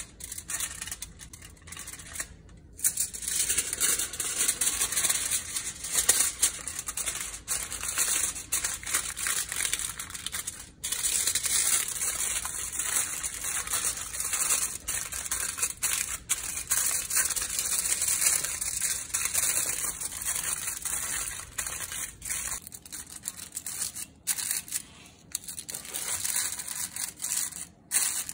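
Aluminium foil crinkling and crackling as hands fold it over and press it into a tight packet.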